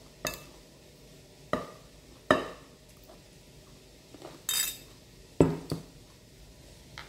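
Metal serving spoon clinking and knocking against a glass bowl and a ceramic plate while stir-fried long beans are dished out: about seven sharp, irregular clinks, with a short scrape about four and a half seconds in.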